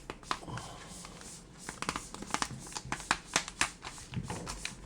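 Thick vacuum-sealed plastic packaging being slowly slit open with a box cutter: crinkling and crackling that grows busier from about two seconds in, as the vacuum gives way.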